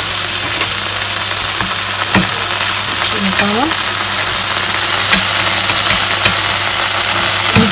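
Pork cutlets frying in butter and olive oil, a steady sizzle with small spits and crackles, over a steady low hum.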